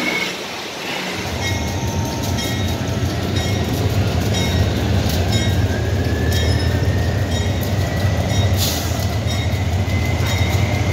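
Bell of a GE-built SRT GEA-class diesel locomotive, struck repeatedly at an even pace, over the low rumble of the locomotive's diesel engine as it approaches. A faint rising whine comes in the middle.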